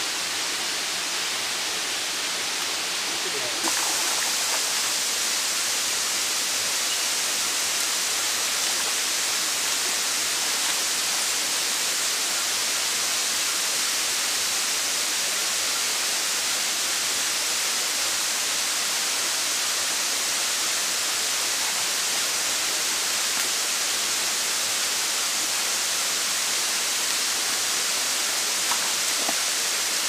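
Steady rush of water from a rocky stream and small waterfall, a continuous hiss with no pauses, getting a little louder and brighter about four seconds in.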